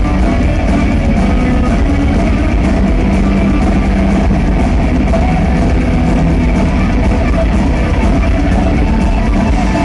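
Heavy metal band playing live: distorted electric guitars and drum kit, loud and dense, heard from the arena audience.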